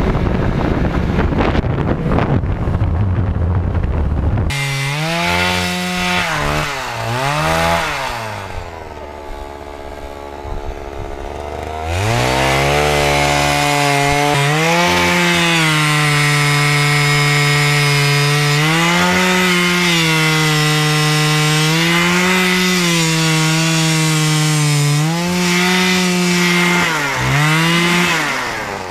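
Snowmobile engine running on the move for the first few seconds. Then a gas-powered ice auger's engine revs up and down as it drills through lake ice. It eases off for a few seconds in the middle, then is held high with short dips in pitch every second or two.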